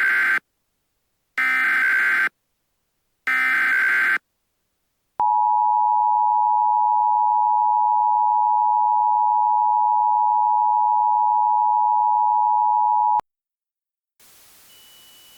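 Emergency Alert System broadcast: the SAME header's short bursts of digital data noise, three in all about two seconds apart, then the EAS two-tone attention signal held steady for about eight seconds before cutting off.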